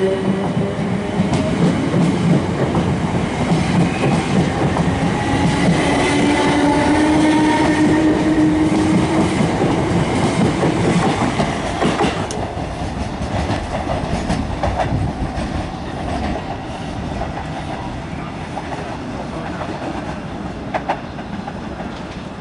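Class 455 electric multiple unit pulling away, its traction motor whine rising in pitch over the wheels clattering on the rail joints. In the second half the train sound is lower and fades away, with a few sharp wheel clicks.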